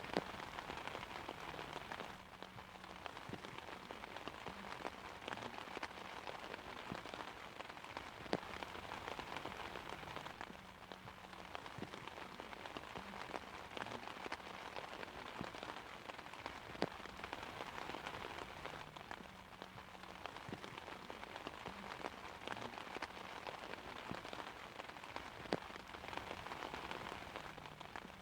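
Steady rain falling on an umbrella's fabric, an even patter with a few louder single drops striking now and then, about every eight seconds.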